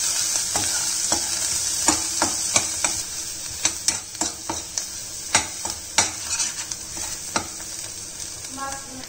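Ground masala paste, with turmeric and chilli powder, sizzling in oil in a non-stick kadhai while a spatula stirs it, with frequent sharp scrapes and taps of the spatula against the pan. The sizzle gradually fades. The paste is being fried on a low flame until the oil separates.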